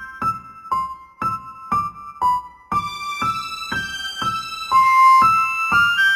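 Background music: a simple keyboard melody of single struck notes, about two a second.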